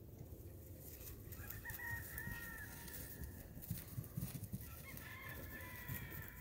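A rooster crowing twice, each crow a drawn-out call of a second or more. Low thumps and rustling in the grass run beneath, loudest in the middle.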